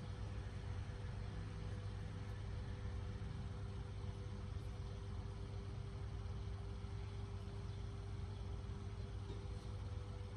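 Steady low background rumble with a constant hum, unchanging throughout, typical of distant traffic or running machinery.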